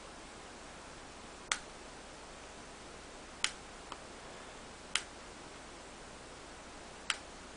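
Four sharp, isolated clicks, a second and a half to two seconds apart, as fingers press and handle a plastic screen-protector film on an iPod touch.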